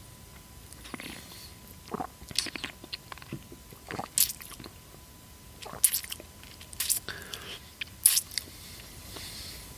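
A person sipping a cocktail and tasting it in the mouth: quiet sips followed by a string of short, wet lip smacks and tongue clicks, about one a second.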